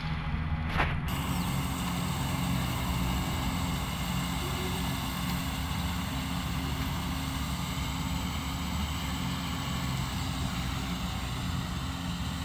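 Two Kubota rice combine harvesters working the field, their diesel engines running in a steady drone. There is a brief click about a second in.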